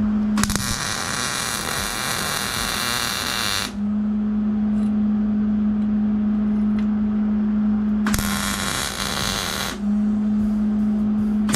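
Electric arc welding on a metal exhaust pipe: two runs of the arc's steady hiss, the first about three seconds long starting just after the start, the second about a second and a half near the end. A steady low hum fills the gaps between them.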